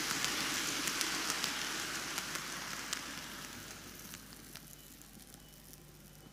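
N-gauge model train (Microace Keikyu 2100 series) running on TOMIX canted track: a rushing rattle of wheels with many sharp clicks at the rail joints, fading steadily as the train slows and stops a little past halfway.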